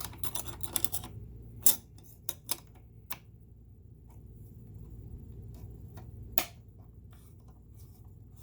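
Small metal clicks and taps of a screwdriver and parts being worked into place in the hook and bobbin-case area of a Singer 6211C sewing machine, with a sharper click about two seconds in and another past the middle.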